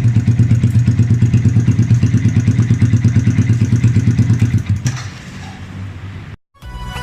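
Yamaha Vixion 150 (FZ150) single-cylinder engine idling through an SC Project M1 aftermarket exhaust, an even, rapid pulsing beat that stops about five seconds in. Music starts near the end.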